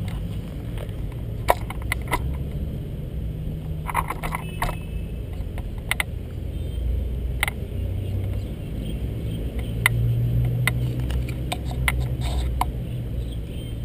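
Scattered sharp clicks and taps over a steady low rumble: long-tailed macaques crowding round a GoPro on gravel, pawing and knocking its housing.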